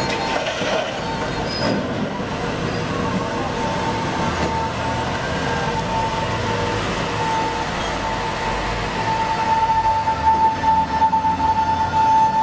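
A BelAZ mining dump truck driving past: a steady high whine over a low rumble, growing louder and more uneven near the end as the truck comes close.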